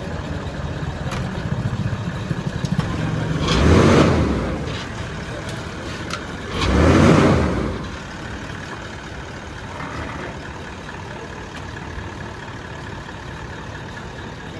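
A car's diesel engine running, with two loud rushing swells about three seconds apart, each lasting about a second.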